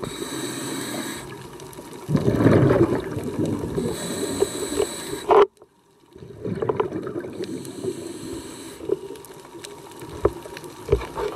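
Underwater sound of a scuba diver's breathing through the regulator: bubbly, gurgling exhalations with a louder burst of bubbles about two seconds in. The sound cuts out briefly near the middle.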